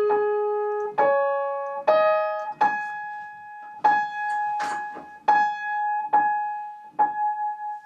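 Fazioli full concert grand piano being tuned: a few different notes are struck, then one treble note is struck over and over, about once a second, each left to ring while the tuner sets its tuning pin.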